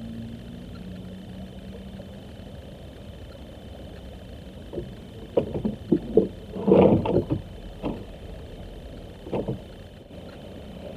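Knocks and bumps of fishing gear being handled in a small boat's hull: scattered short knocks, a quick clatter of several about seven seconds in, then two more single knocks.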